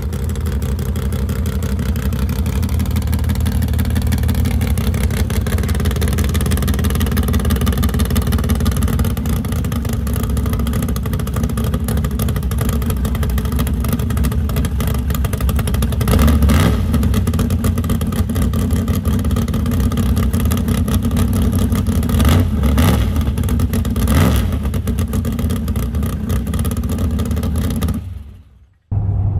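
The small-block Chevy V8 of an 87 GMC Jimmy running at low speed with a fast, even pulse while the truck is driven up onto a car trailer, with three short throttle blips in the second half. The sound drops away abruptly near the end.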